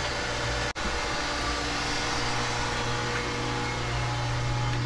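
Koi pond filter equipment running: a steady motor hum under a broad rush of moving water, with a split-second gap in the sound just under a second in.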